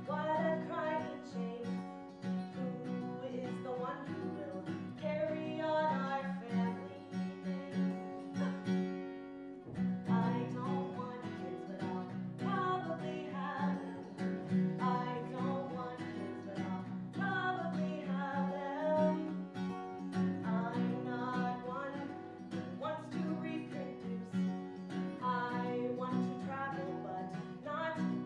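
A woman singing a comic song over a strummed acoustic guitar, with a short break in the music about nine and a half seconds in.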